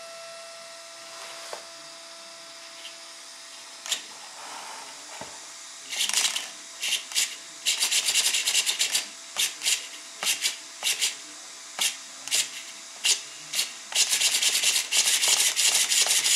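Blue Bird BMS-631MG metal-gear steering servo buzzing in short bursts as it swings the drift car's front wheels from lock to lock, starting about six seconds in and speeding up into a rapid run of back-and-forth sweeps near the end.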